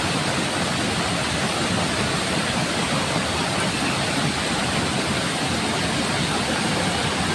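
Steady rushing of fast floodwater pouring across a road.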